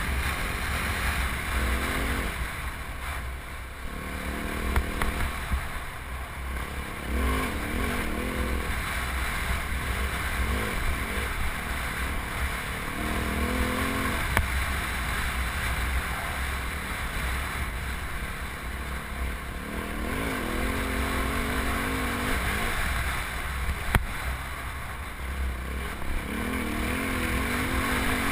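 Yamaha WR450F's single-cylinder four-stroke engine running under way on a dirt bike, revs rising and falling every few seconds with the throttle, picked up by a helmet camera with heavy wind rumble. A few sharp knocks stand out, the loudest about 24 seconds in.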